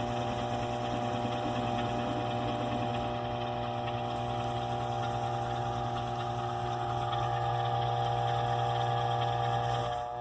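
Antique 1920s lathe driven by a DC treadmill motor, running steadily at speed. It gives a constant electric hum with several steady tones above it.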